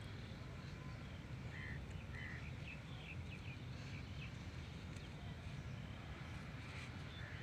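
Steady low outdoor rumble with a few faint, short, high chirps in the first half.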